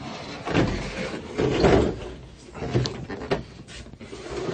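A CRT television's cabinet scraping and bumping across a workbench top as it is swung round, then a couple of short knocks near the end as it is set down.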